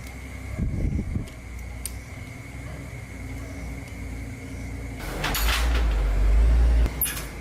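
Small motorbike engine running at a steady low hum, with a louder burst of low rumble about five seconds in that lasts about two seconds and cuts off suddenly, followed by a sharp click.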